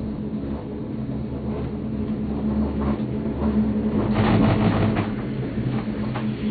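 Leitner six-seat gondola cabin (1987) running up its haul rope, heard from inside the cabin: a steady mechanical hum, with a louder spell of rattling and knocks about four seconds in.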